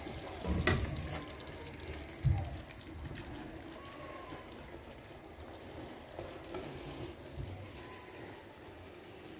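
Soft steady hiss and gentle sizzle of food cooking in pans on a gas hob, with a sharp knock about half a second in and a dull thump a little over two seconds in.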